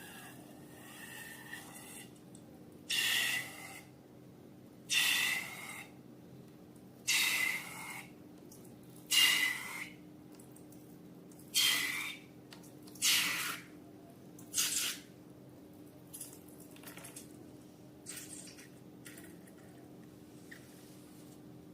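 Slime being squished and worked by hand: a series of wet squelches, about seven loud ones a couple of seconds apart, then softer, shorter ones near the end.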